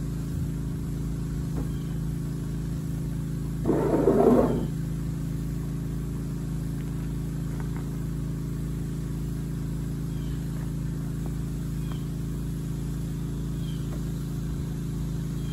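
Steady low mechanical hum, with a short rattling scrape about four seconds in.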